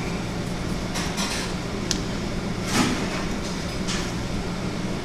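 Steady low hum of a restaurant kitchen's air conditioning, with a few light clicks and knocks as small seasoning cups are handled on a stainless steel counter.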